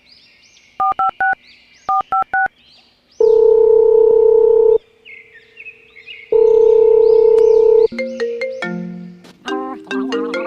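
Phone-call sounds: two quick runs of four keypad dialing beeps, then two long ringing tones of about a second and a half each, then a marimba-like ringtone melody starting about eight seconds in. Faint bird chirps sound during the first few seconds.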